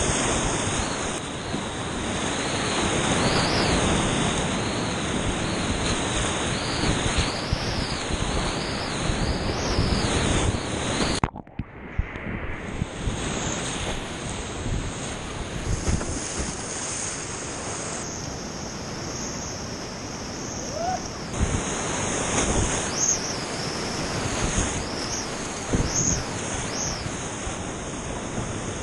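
Whitewater rapids rushing hard around a kayak, heard up close from the boat: a loud, steady wash of churning water that briefly drops away about eleven seconds in.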